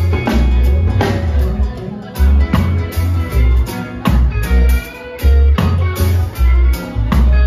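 Live band playing: drum kit, bass guitar and electric guitar, with short, punchy bass notes over a steady drum beat.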